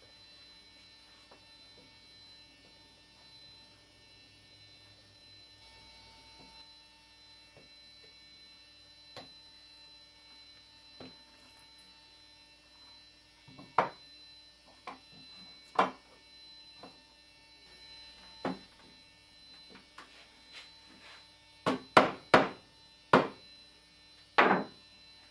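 Glued wooden leg blocks being knocked into place in bar clamps: scattered sharp knocks, then a quick run of louder mallet taps near the end. A faint steady electrical hum lies underneath.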